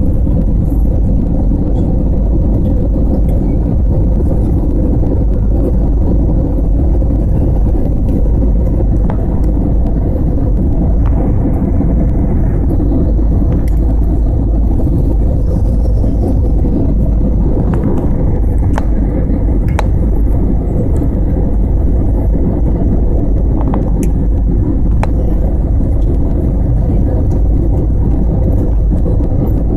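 Airbus A320 airliner landing: a loud, steady low rumble of engine and airflow noise, with a faint steady tone in the middle range.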